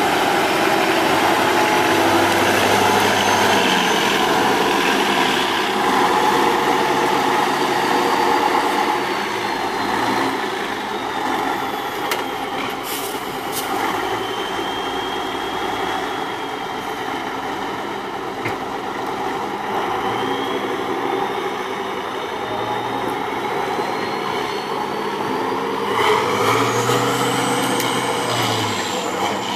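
Tatra 813 8x8 trial truck's diesel engine running under load on a steep climb, its revs rising and falling. It is loudest at the start, eases off through the middle and swells again near the end, with a few sharp hissing or clicking noises about halfway through.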